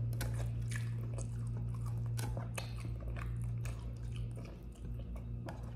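A person chewing a mouthful of rice and a crunchy fried side dish close to the microphone: irregular crunching clicks over a steady low hum.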